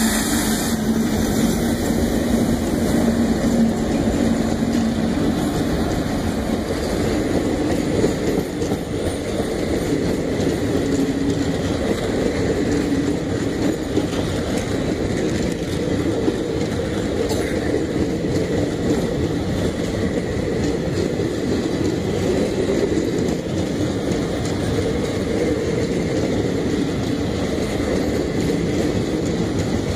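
ALCo WDG3A diesel locomotive passing close, its engine drone fading within the first few seconds, then a long rake of passenger coaches rolling past with steady wheel clatter on the rails.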